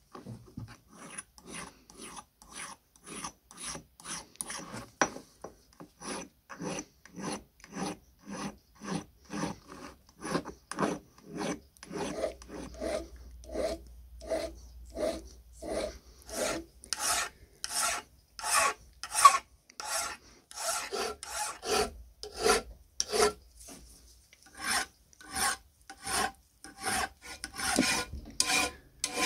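Hand file rasping back and forth over a cast metal part held in a vise, in steady strokes of about two a second.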